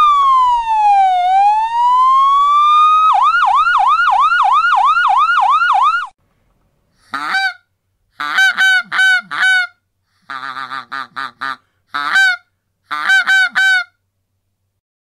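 Police siren wailing, its pitch sliding slowly down and back up, then switching to a fast yelp about three seconds in and stopping at about six seconds. After a second of silence, a goose honks in short bursts from about seven seconds until near the end.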